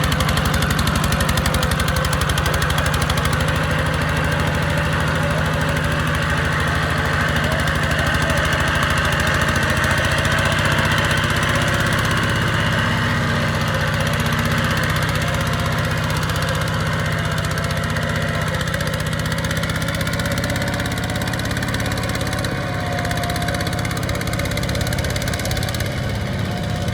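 Farm machinery diesel engine running steadily at a constant speed, an even pulsing hum with no pauses.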